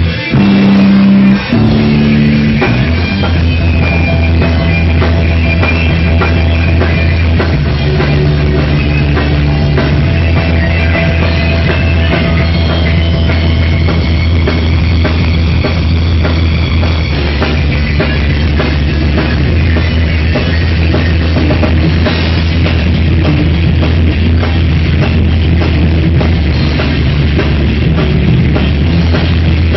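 Live rock band playing loud and steady: electric guitar, bass guitar and drum kit, with a brief break in the first couple of seconds.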